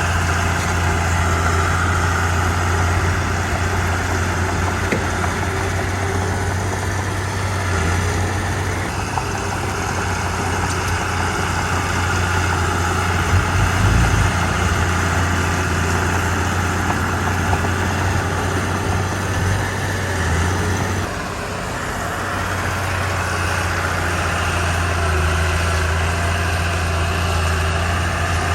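Komatsu D31 bulldozer's diesel engine running steadily under work with a deep, constant drone; the engine eases off briefly about three-quarters of the way through, then picks up again.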